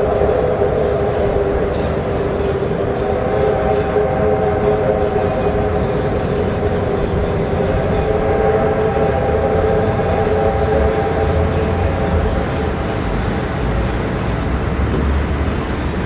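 R class Hudson steam locomotive's whistle held in one long continuous blast, several notes sounding together and sagging slightly in pitch, over the low rumble of the double-headed train crossing the viaduct. The rumble grows stronger near the end.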